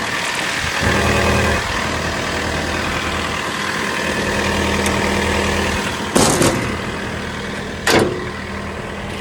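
John Deere 317G skid steer's diesel engine idling steadily, running well. Two short hissing bursts come about six and eight seconds in.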